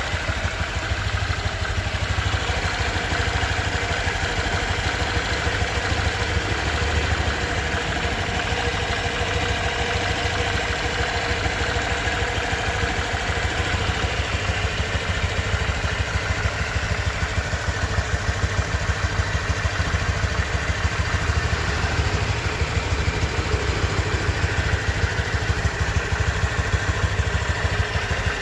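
Honda Vario 125 (2023) scooter's single-cylinder four-stroke engine idling steadily, heard close to its CVT transmission case. The owner judges it to be running smoothly at just over 1,000 km.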